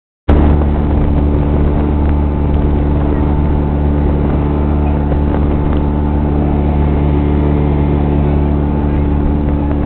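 Speedboat engine running with a loud, steady drone, heard from on board.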